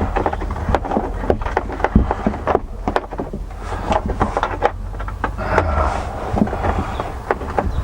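Irregular clicks and knocks of hand tools working the screws that hold a car's dashboard, with a stretch of scraping through the middle and a steady low hum underneath.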